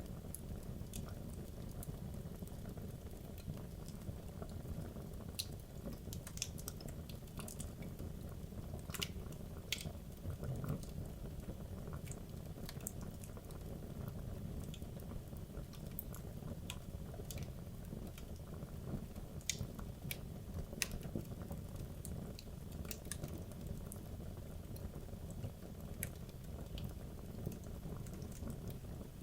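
Wood logs burning in a fireplace: a steady low rumble of flames with irregular sharp crackles and pops from the burning wood.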